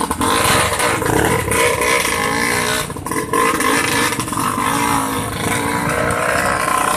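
A motor vehicle's engine running under way, its pitch rising and falling, over a steady rushing noise.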